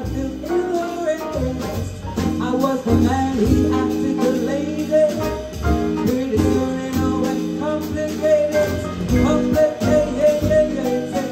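Live jazz band playing: piano, hollow-body electric guitar, upright double bass and drum kit, with a woman singing the melody at the microphone.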